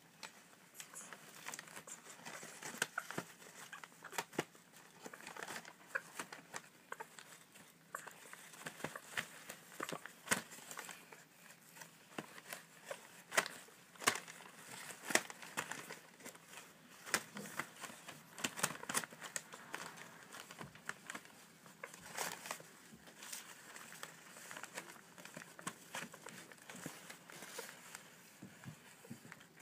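Newspaper and paper towel rustling and crinkling under a nest of African grey parrot chicks as they are stroked and shift about, with many small, irregular sharp clicks.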